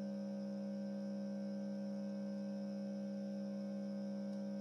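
Hot air rework gun's blower running, a steady electric hum with a few fixed pitches, while it blows hot air onto a circuit board to melt the solder under a chip.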